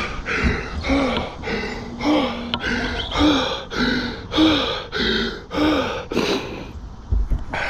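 A cyclist panting hard right after a hard effort, about one breath a second, with rasping breaths in and out and a short hum of voice on each breath out. The breathing eases off near the end.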